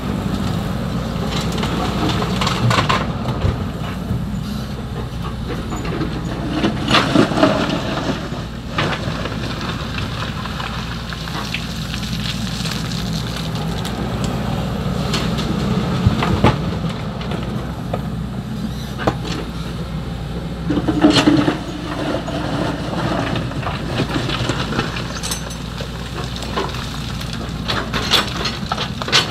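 XCMG 75 excavator's diesel engine running steadily under work, with the bucket scraping, knocking and rattling through sand-and-gravel fill several times as it digs and dumps.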